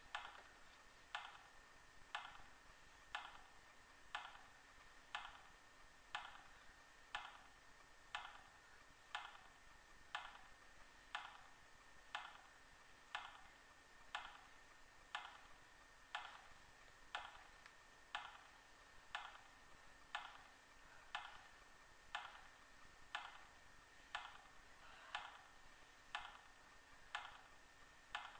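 Faint, steady clock-like ticking, about one tick a second, keeping an even beat.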